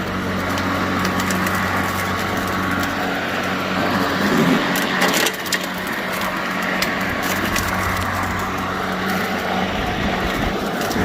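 Greenworks 80V cordless electric push mower running in mulch mode, its blade and motor giving a steady hum while it chops up dry leaves. About four to five seconds in there is a brief burst of sharp cracks as debris is struck by the blade.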